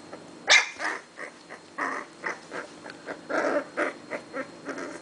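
Blue-nose pit bull puppies yelping and crying in a string of short bursts as they play-fight, with one sharp, loud yelp about half a second in.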